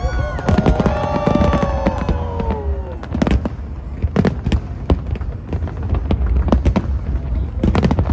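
Aerial fireworks going off: a dense run of sharp bangs and crackles over a steady low rumble of booms. Several long falling tones sound together over the first three seconds.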